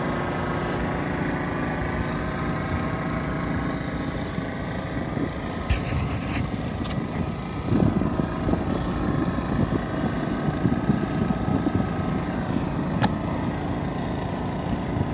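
Gasoline engine running steadily, with a rougher low noise joining about halfway through.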